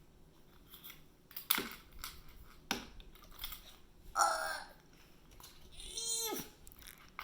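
A Pokémon Beast Ball tin being pried and twisted at to get the lid off, giving sharp clicks and knocks. A strained vocal effort sound falls in pitch near the end as the lid resists.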